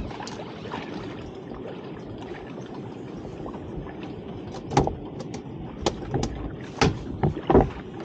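Steady wash of sea and wind around a small open boat, with a run of sharp knocks and slaps in the second half.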